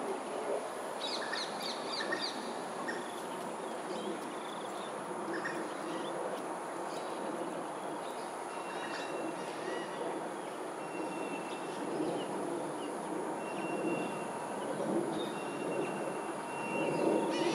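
Outdoor ambience with a steady low rumble in the background and wild birds calling over it: a quick run of about five high notes about a second in, then short thin whistled notes now and then through the rest.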